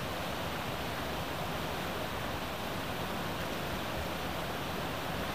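Fast mountain river rushing over boulders, a steady even whitewater noise. The flow has risen suddenly, which the couple think may be from a sluice gate opened upstream.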